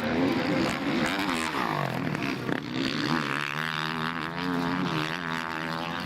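Motocross bike engines running at racing revs; one engine's pitch drops about a second and a half in, then engine pitch rises and falls repeatedly with the throttle.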